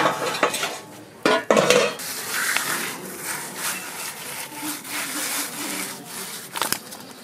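Fish being scaled by hand-rubbing them against hard earth ground: an uneven run of gritty scraping strokes, with a couple of sharper knocks about a second in and near the end.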